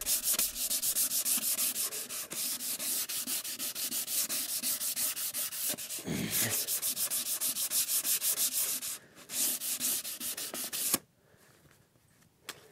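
Hand sanding the top of a wooden drawer with a sheet of 240-grit sandpaper: quick, even back-and-forth rubbing strokes, the fine final pass that meets little resistance. The strokes pause briefly about nine seconds in and stop about eleven seconds in, followed by one small click.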